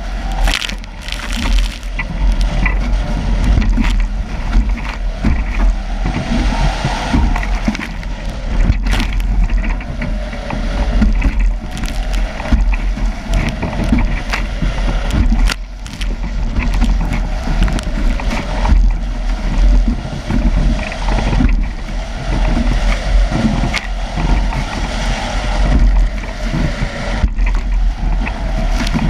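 Strong wind buffeting the camera's microphone with a constant low rumble, over the rush and splash of waves on a Nacra 17 racing catamaran sailing in heavy weather, with irregular knocks and slaps throughout.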